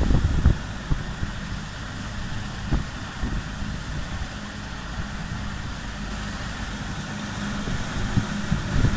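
Dissolved air flotation machine running: a steady low motor hum with a constant tone and an even wash of noise. Louder low rumbles break in during the first half second and again near the end.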